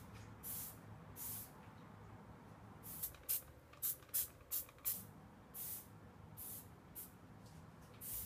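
Hand trigger spray bottle squirting over and over: about a dozen short sprays, several in quick succession around the middle.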